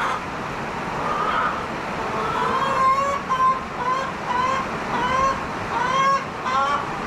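Chickens in a coop calling in a run of short rising calls, about two a second, starting about two seconds in, over a steady hiss of heavy rain.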